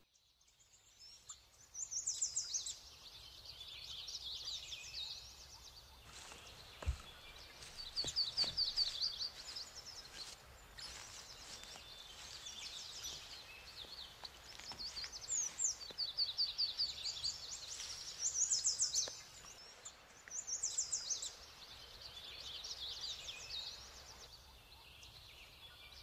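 Songbirds singing: short, fast trilled phrases repeated every few seconds, over a faint steady hiss.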